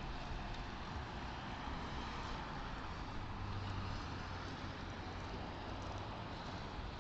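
Steady, faint car-interior road and engine noise picked up by a dashcam, with a low engine hum that swells for a few seconds in the middle.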